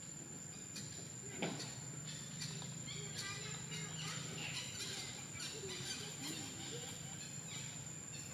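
Faint forest ambience: a steady high-pitched insect drone, with scattered short bird chirps and a single sharp tap about a second and a half in.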